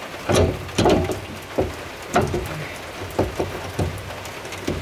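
Irregular metal clunks and knocks as the carrier and ring gear of a Chrysler 9.25 rear differential are rocked and worked by hand in the axle housing. Steady rain hisses in the background.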